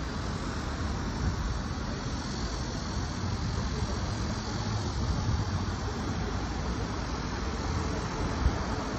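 Steady rush of road traffic, a continuous low rumble and hiss with a single short knock near the end.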